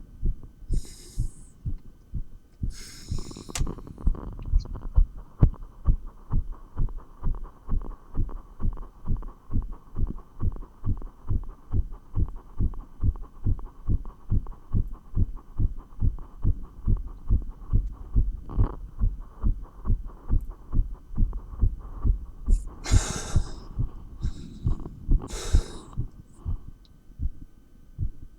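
Human heartbeat picked up through a stethoscope on the chest: a quick, even run of low thumps, its rate raised by dumbbell exercise. A few brief hissy bursts sit over it near the start and again near the end.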